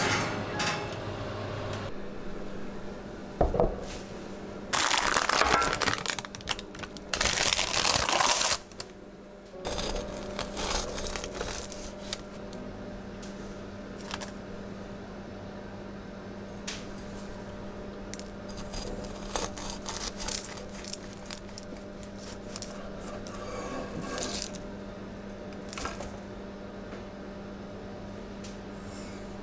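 Crinkling and scraping as the crumb-topped banana bread loaf is handled and cut on its baking paper, in two loud bursts about five and seven seconds in, then scattered light crackles and taps over a steady low hum.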